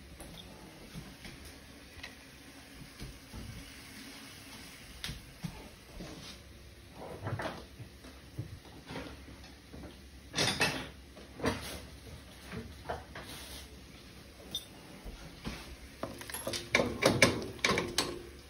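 Kitchen handling noises: scattered light knocks and clatter, with a louder cluster about ten seconds in. Near the end comes a quick run of scrapes and taps as chopped aromatics are scraped off a cutting board into a pot of beans.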